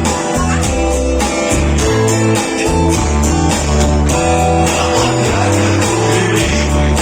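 Instrumental rock passage: strummed guitars over a bass line, with a steady beat and no singing.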